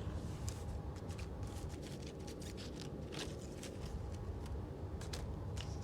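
Laminated paper cards being handled: faint rustling and light clicks over a low rumble.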